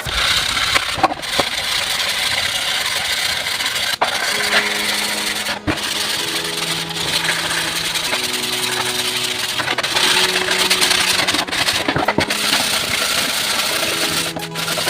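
A steady, coarse working noise of a tool on wood, with background music of slow held notes under it.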